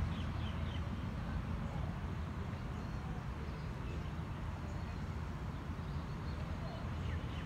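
Steady low outdoor rumble, with a few faint bird chirps near the start and again near the end.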